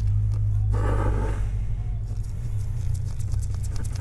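A steady low hum throughout, over which a Torx T8 screw is driven into a laptop's metal display hinge with a precision screwdriver: a brief scrape about a second in, then faint rapid ticks in the second half.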